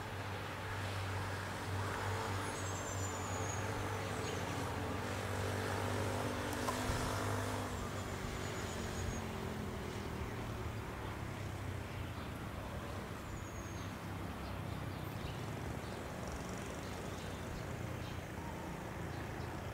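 An engine running with a steady low drone, its tones fading out about eight seconds in. A bird gives short falling chirps several times over it.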